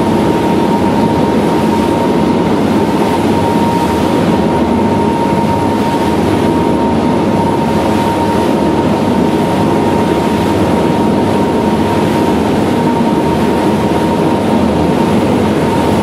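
Bladerunner 51 high-speed craft running underway: a steady, loud mix of engine and rushing water noise with a thin, steady high whine on top.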